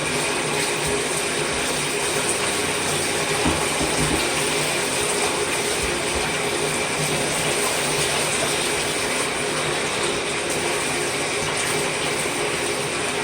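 Water running steadily from a tap onto a dirty vacuum cleaner part being rinsed in a tub.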